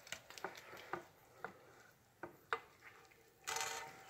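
A spatula scraping and knocking fried potatoes and sausage out of a frying pan into a pot: scattered scrapes and clicks, with a short hiss near the end.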